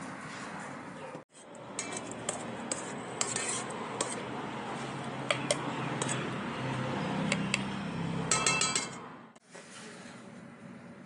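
A spoon scraping and clinking against a stainless-steel pot while serving sambal into a bowl, with scattered clinks and a quick run of ringing taps on the metal near the end.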